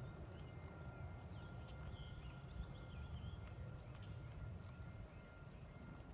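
Small birds chirping in short repeated phrases over a low rumble.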